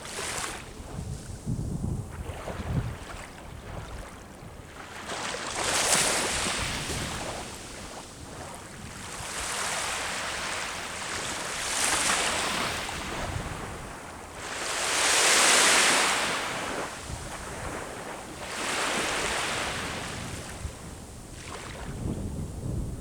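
Ocean waves breaking and washing up the shore, one surge every few seconds, the loudest about two-thirds of the way through. Low wind rumble on the microphone near the start and end.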